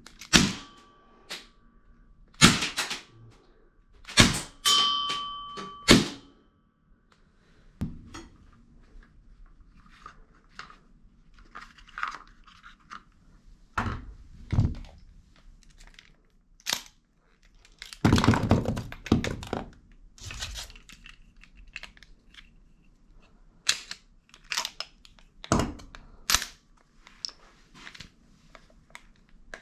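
A few sharp shots from a BB revolver in the first six seconds, one followed by a short metallic ring. Then a string of scattered clicks, knocks and rattles as the revolver is handled and its cylinder opened for reloading.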